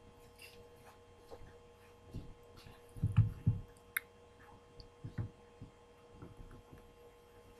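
A few dull low thumps about three seconds in, with scattered light clicks before and after, over a faint steady electrical hum.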